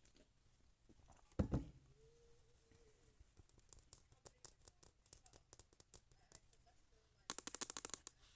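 Close-miked handling noise: a single thump about one and a half seconds in, then scattered light clicks and a quick run of rapid tapping clicks near the end.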